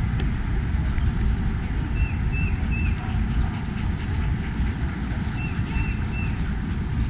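Wind buffeting the microphone in a steady low rumble, with a small bird chirping in quick runs of three short notes, twice.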